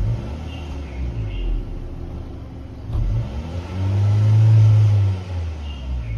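Honda Civic FL1's 1.5-litre turbo four-cylinder idling through its exhaust muffler, with a short throttle blip at the start and one rev about three seconds in that rises, holds for about a second at its loudest and drops back to idle.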